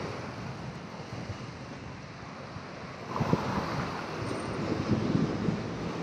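Wind buffeting the microphone over road noise from traffic, with a few short knocks from about halfway through.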